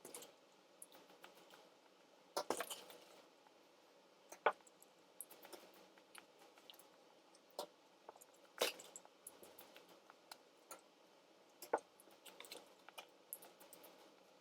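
A person eating chicken nuggets: wet chewing and mouth clicks, with irregular sharp clicks and a couple of brief rustles, about two and a half and nine seconds in.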